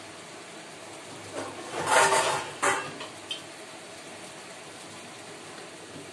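A pot of water boiling with a steady bubbling hiss. About two seconds in there is a short, loud clatter of knocks, and a light bump comes near the end as a glass lid is set on the pot.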